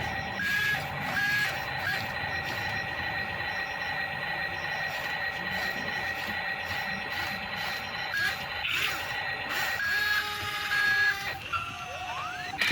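A toy remote-control excavator running its small electric motors with a steady whine, over short repeated electronic beeps, and a rising tone near the end.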